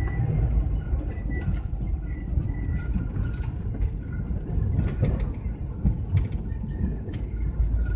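Inside the cab of a GAZelle van driving on the highway: a steady low rumble of engine and road noise, with faint whines and a few light knocks and rattles.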